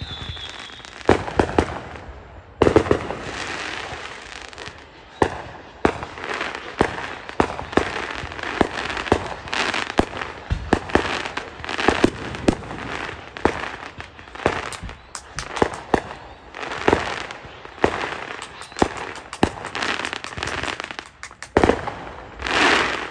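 Aerial fireworks going off in quick succession: many sharp bangs of shells bursting, with crackling in between. A short falling whistle sounds at the start, and a longer dense crackle comes near the end.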